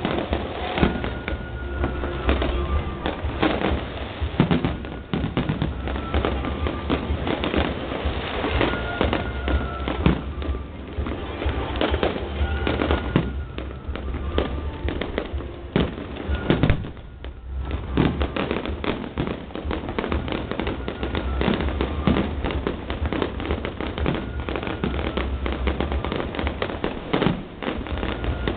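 Fireworks display: a dense, continuous barrage of bangs and crackling, easing off briefly a little over halfway through.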